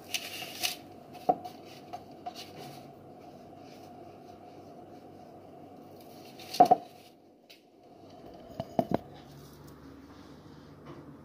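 Dishes handled on a kitchen counter: scattered light clicks and knocks, the loudest about six and a half seconds in and a quick pair near nine seconds, over a faint steady hum.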